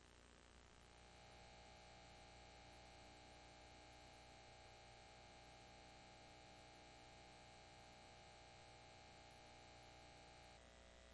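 Near silence: a faint, steady electrical hum with low hiss.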